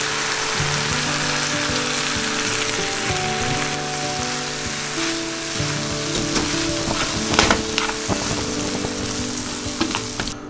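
Cabbage and ground pork sizzling in a non-stick frying pan as a potato-starch slurry is poured in to thicken the sauce and the mixture is stirred with chopsticks. The sizzle is steady and stops abruptly near the end.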